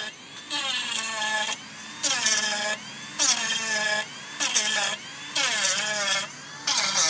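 Handheld Dremel-style rotary tool with a small cutting disc grinding into perlite-lightened concrete in about six short bursts, its pitch bending down within each one.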